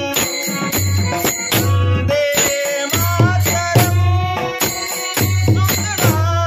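A man singing a Marathi devotional bhajan, accompanied by small hand cymbals (taal) striking in a steady rhythm.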